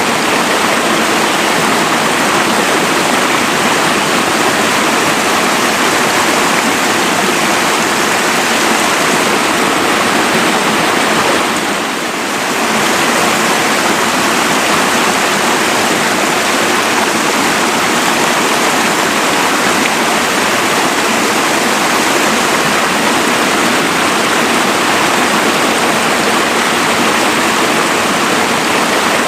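Mountain waterfall: a steady, dense rush of falling water, dipping briefly in loudness about twelve seconds in.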